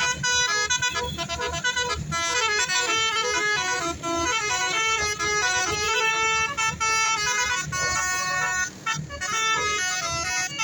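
Multi-tone 'basuri' telolet horn on a tour bus playing a tune. Its notes step up and down several times a second, with a low rumble underneath.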